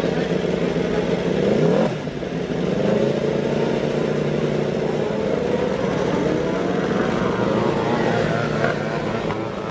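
Racing motorcycle engines revving, their pitch sweeping up and down in several overlapping runs; one sharp climb breaks off about two seconds in.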